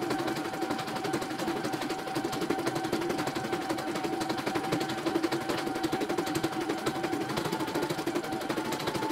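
E900 computerized embroidery machine stitching: rapid, even needle strokes over a steady motor whine that steps up slightly in pitch about seven seconds in.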